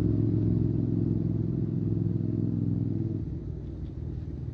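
A motor running steadily with a low, even hum, easing off a little about three seconds in.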